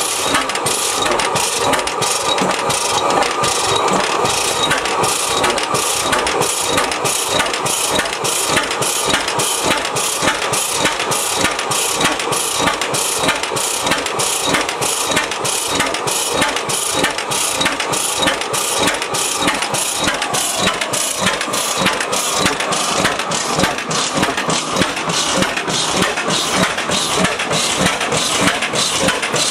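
1905 Reid 15-horsepower hot-tube two-cycle oilfield engine running steadily, with an even beat of exhaust strokes.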